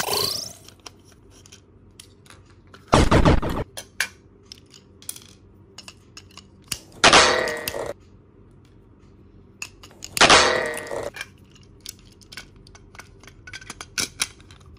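Small clicks and clatter of a plastic toy train's shell, chassis and battery parts being handled and taken apart, with three louder clanks about three, seven and ten seconds in, the last two ringing briefly.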